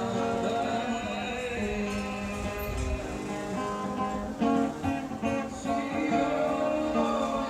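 Background music: acoustic guitar with singing.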